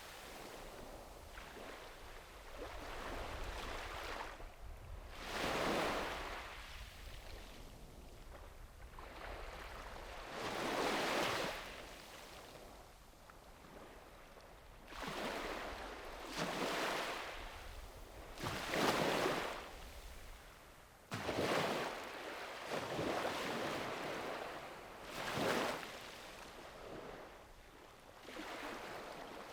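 Sea waves breaking on a sandy beach, one after another every few seconds, each a rush of surf that swells and then fades.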